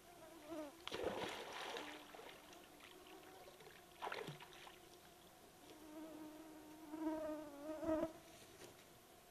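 Flying insects buzzing close by in wavering, rising and falling tones, with black bears splashing in pond water: a longer splash about a second in and a short sharp one at about four seconds.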